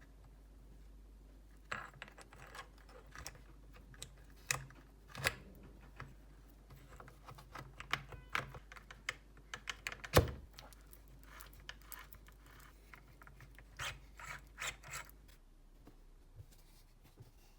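Irregular small clicks, taps and scrapes of hard parts and tools being handled during repair work, with one sharper knock about ten seconds in.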